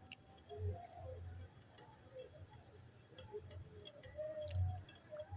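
Faint scattered metallic clicks and ticks, with a few low thuds, from a spanner and a scooter's stock horn being worked loose and handled.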